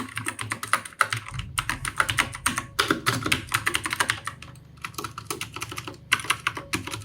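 HP GK320 mechanical keyboard being typed on quickly: a fast, uneven run of key clicks with a couple of brief pauses.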